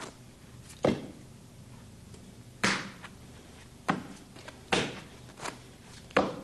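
Playing cards being handled and dealt onto a felt-covered table: about six sharp snaps, irregularly spaced.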